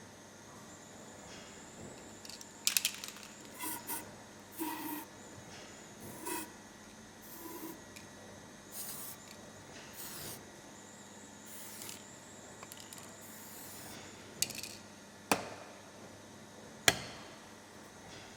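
Hand work on a disassembled injection mold: a run of short hissing, rubbing bursts, then two sharp clicks a second and a half apart about three seconds before the end.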